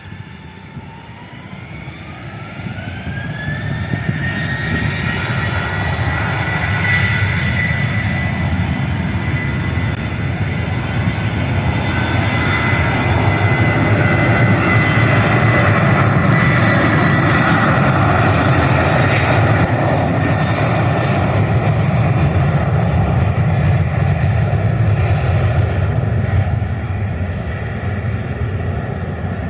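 Boeing 737-800's CFM56 jet engines spooling up for the takeoff roll: a whine rises in pitch over the first few seconds and then holds steady over loud, heavy engine noise as the airliner rolls past. The noise eases off near the end as it moves away down the runway.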